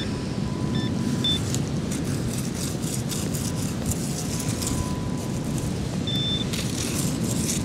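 Gale-force wind buffeting the camera microphone, a steady low rumble. Short high beeps from a metal-detecting pinpointer cut through twice about a second in and once, longer, about six seconds in.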